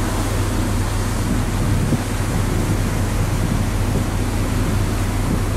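Steady rushing of a cruise ship's churning stern wake, with the low, even hum of the ship's engines underneath.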